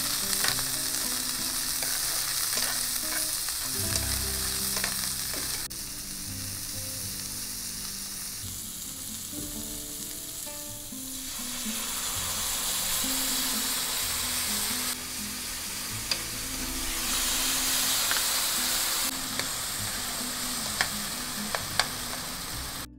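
Chopped vegetables sizzling in hot oil in a non-stick frying pan while being stir-fried with a metal spatula, with sharp clicks of the spatula against the pan. The sizzle eases off for a few seconds and swells again about halfway through, as a dark sauce is poured in.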